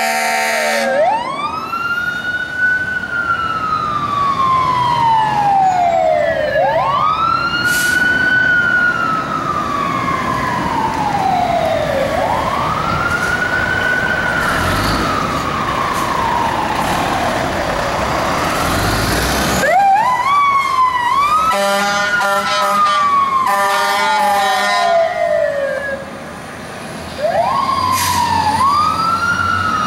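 Fire apparatus siren wailing in long, slow rise-and-fall cycles about five seconds apart as fire trucks respond on an emergency call. About two-thirds of the way in, horn blasts sound over the siren, which then rises more quickly again.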